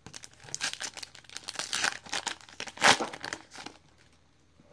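Foil wrapper of a Panini Optic basketball card pack being torn open and crinkled, a run of crackling rips with the loudest tear about three seconds in; the crinkling stops near the end.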